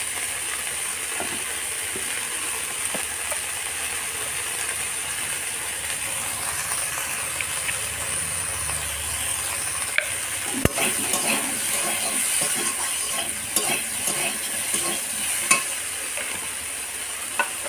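Cut okra frying in oil in a steel kadai, with a steady sizzle. From about ten seconds in, a metal spatula stirs it, clicking and scraping against the pan.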